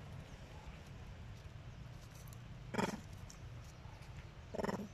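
Two short macaque calls, about two seconds apart, the second a little longer than the first.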